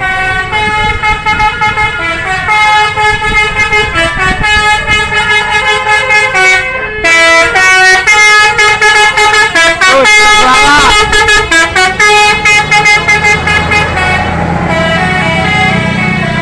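Tour bus's multi-tone 'telolet' musical horn sounding a rapid run of short honked notes that step up and down in pitch like a tune, with a wavering pitch glide about ten seconds in. A low steady hum comes in near the end.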